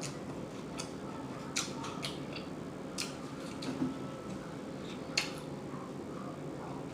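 Close-miked chewing with mouth smacks: about six short, sharp clicks at uneven intervals over a steady low hum.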